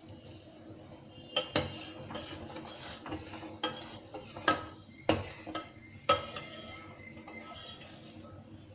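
A metal utensil clinking and knocking against a metal cooking pot, about seven sharp knocks with a brief ring, loudest in the middle of the run, then stopping. Typical of a spoon stirring a boiling decoction in the pot.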